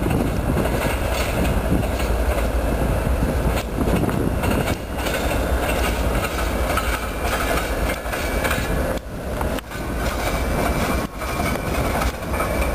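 CSX GE wide-cab diesel locomotives passing close by at the head of a freight train: a steady, loud rumble of engines and rolling wheels on the rails.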